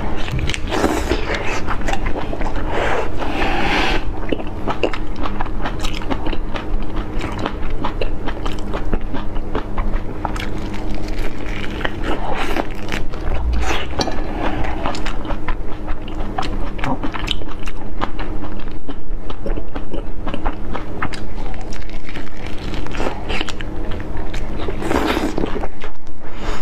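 Close-miked eating of spicy marinated whole shrimp: biting and chewing through the shells, with a dense run of small wet clicks and crunches, over a faint steady hum.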